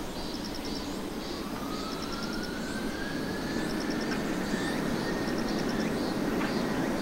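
Jet airliner's engines running with a steady rush that grows slowly louder, and a thin turbine whine rising in pitch over several seconds. Short trains of high chirps recur throughout.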